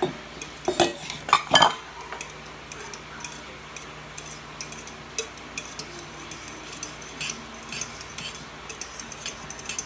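A metal utensil stirring and whisking egg, water and melted butter in a small stainless steel bowl, ticking and clinking against the bowl. There are a few louder clinks in the first two seconds, then quick light ticks.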